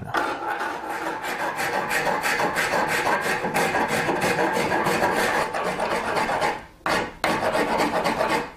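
Coarse rasp scraping back and forth over the horn nock at the tip of a yew bow limb in quick, light strokes, rough-shaping the horn. The strokes break off briefly about two-thirds of the way through, then resume.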